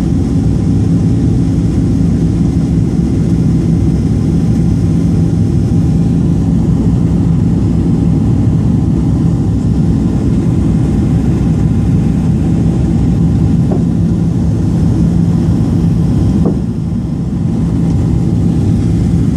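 Cabin noise of a Boeing 767-400ER in flight: the wing-mounted turbofan engines and the airflow over the fuselage make a loud, steady rumble with a constant low hum, dipping slightly for a moment near the end.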